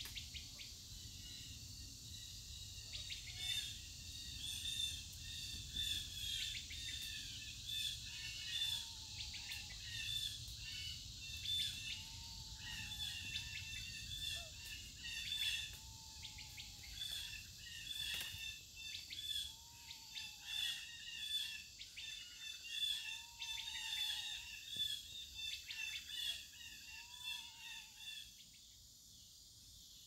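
Birds singing and chirping, one of them repeating a short arched whistle every few seconds, over a steady high hum of insects. The birdsong drops out near the end, leaving the insects.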